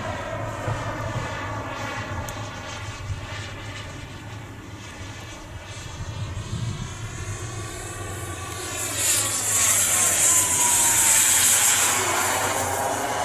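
Radio-controlled model airplane flying overhead. Its motor sound swells and gets brighter from about nine seconds in as it passes closer, with a whine that drops in pitch as it goes by.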